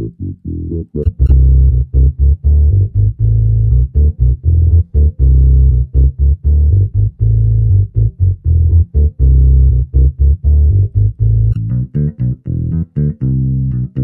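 A looped electric bass line played through the Markbass Mark Studio 2 bass amp-simulator plugin, its tone changing as presets are switched. About a second in it gets louder and fuller in the low end; near the end it turns brighter, with more treble.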